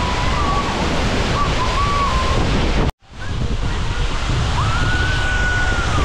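Steady rush of a waterfall mixed with wind buffeting the microphone, with faint distant voices calling over it. The sound drops out sharply for an instant about three seconds in.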